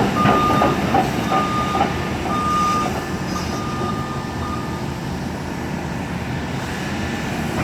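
Excavator travel alarm beeping about once a second over the running engine, the beeps fading out about halfway through.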